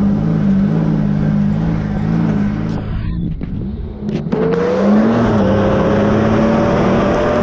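Vehicle engine running while driving, its note wavering steadily; about three to four seconds in it drops off briefly, then picks up again with a rising whine as the vehicle accelerates.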